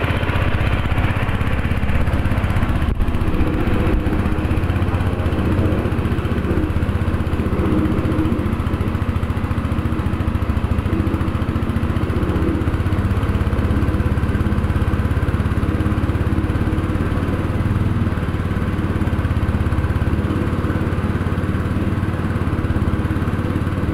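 Belt-driven 8-inch spice grinding mill running steadily under load, grinding red spice paste.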